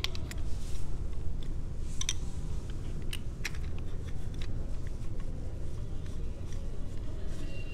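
Scattered small clicks and taps from handling a handheld camera stick while its battery is swapped, over a steady low rumble of city street background.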